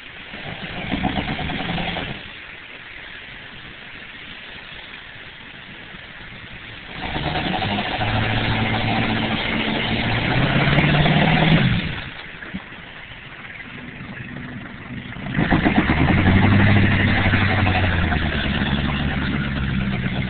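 Engine of a square-body Chevrolet Blazer revving hard in three bursts as it drives through mud: a short rev about a second in, a longer pull from about seven seconds whose pitch climbs before dropping off suddenly, and a third long pull near the end. A steady hiss fills the gaps between.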